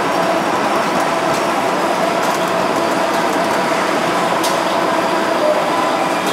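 Citrus sizing machine's exit conveyor belts running: a steady mechanical hum with a couple of steady tones in it, and a few light clicks.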